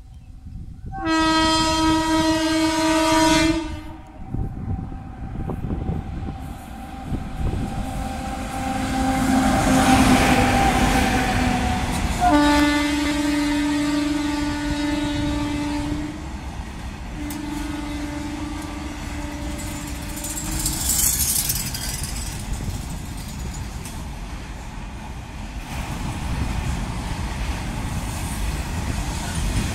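WAG7 electric freight locomotive blowing a long horn blast about a second in, then passing with a loud rush and blowing two more long blasts a few seconds apart, while its train of BRH flat-bed wagons rumbles and clatters past.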